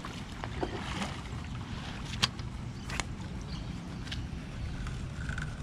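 Steady low rumble of wind buffeting the microphone, with two sharp clicks about two and three seconds in.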